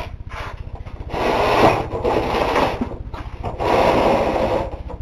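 Two long spells of scraping and rustling as the TV set and its chassis are handled and shifted on the bench, over a steady low hum.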